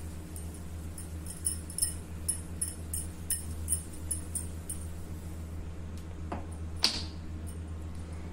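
Felt whiteboard eraser rubbing across a whiteboard in quick short strokes, heard as faint scratchy ticks over a steady low hum, with two sharper strokes near the end.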